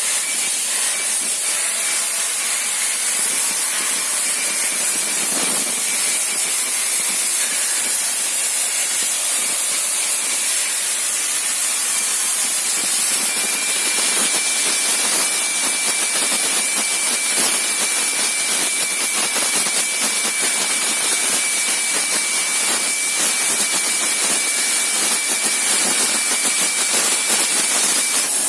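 CNC plasma cutter cutting, its plasma arc and compressed-air jet giving a loud, steady hiss. A thin, high whine joins about halfway through and drops out shortly before the end.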